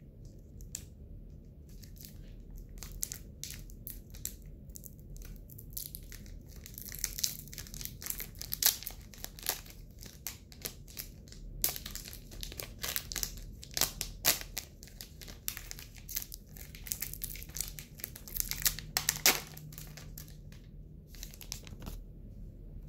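Japanese Pokémon card booster pack wrapper crinkling and tearing as it is peeled open by hand, in irregular crackles that are busiest in the middle.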